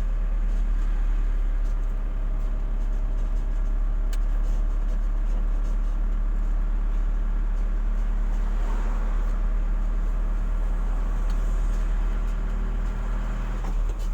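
Car driving, heard from inside the cabin: a steady low engine and road rumble that stays even, dropping off at the very end.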